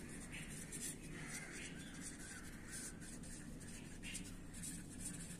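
Felt-tip marker scratching on paper in short strokes as words are written. A bird calls faintly in the background about a second in.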